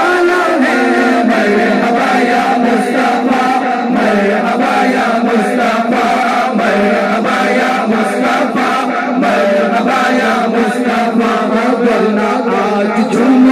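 A group of voices chanting a devotional naat together over a steady beat of about two strikes a second.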